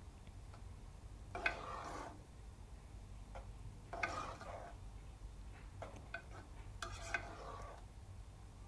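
Metal spoon stirring and scraping minced meat around a metal pot: three longer scrapes with small clinks between. The mince is cooking dry in its spices, with no water added yet.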